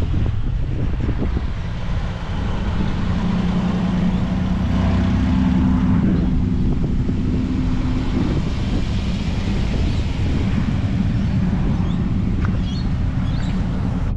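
Car engine running, a steady low drone that is strongest in the middle for several seconds.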